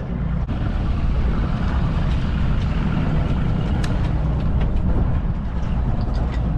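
Outboard motor running steadily, pushing a small open boat across choppy water, with a few light knocks along the way.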